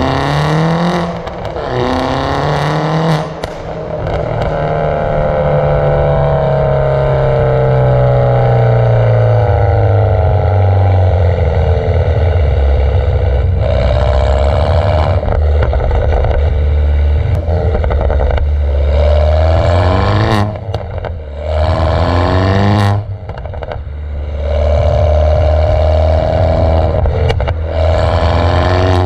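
Mini John Cooper Works R56's 1.6-litre turbocharged four-cylinder through a decatted, non-resonated exhaust, heard right at the twin tailpipes while driving. The revs climb twice in quick succession near the start, then fall in a long slow drop, and the engine then runs steadier, broken by several short, louder bursts of exhaust.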